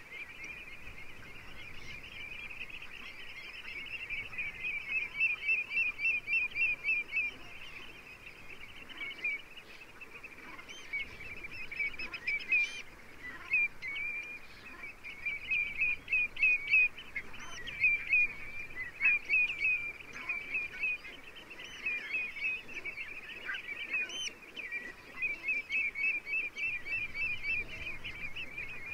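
A flock of coastal waterbirds calling in a dense, continuous chorus of quick repeated calls, swelling louder in several stretches, over a faint background of wind and open-shore noise.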